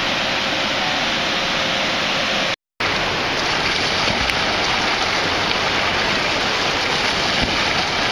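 Steady rushing of river water pouring over a falls, a dense even noise, which cuts out completely for a moment about two and a half seconds in.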